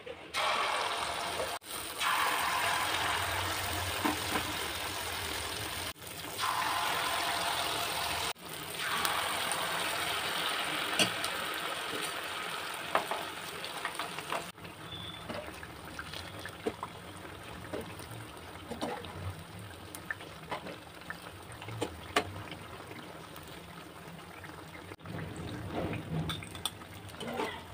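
Malpua batter deep-frying in hot oil: a steady sizzle with scattered pops and crackles. It is densest in the first half, when fresh batter is in the oil, and it breaks off abruptly at several edit cuts.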